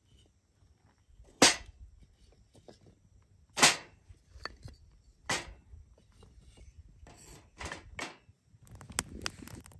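Firewood popping in a campfire: sharp single cracks a couple of seconds apart, the loudest about one and a half and three and a half seconds in, then quicker, smaller pops near the end.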